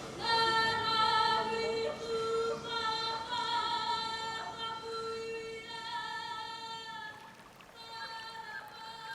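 Music: a woman's voice singing long held notes with vibrato, in short phrases, growing softer near the end.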